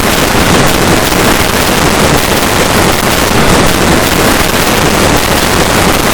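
Loud, harsh static-like noise spread evenly across all pitches, steady with no rhythm or pauses: digitally distorted audio, with no cat meow recognisable.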